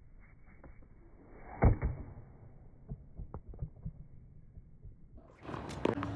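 Tennis racket striking the ball on a serve: one sharp hit about one and a half seconds in, followed by a few fainter knocks. Near the end, a short stretch of outdoor hiss with another knock.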